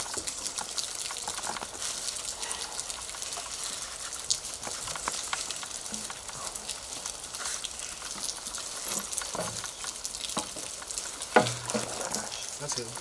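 Steady crackling outdoor hiss with scattered small ticks and scuffs as a man climbs through a window onto the stone sill, then one loud thump about eleven seconds in as he drops down to the ground.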